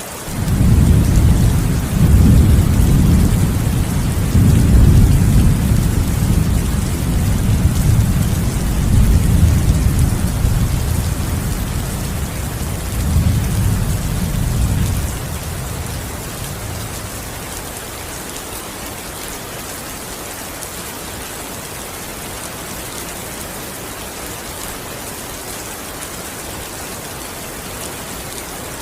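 Rain falling steadily, with a long rolling rumble of thunder over the first half that dies away a little past halfway, leaving only the rain.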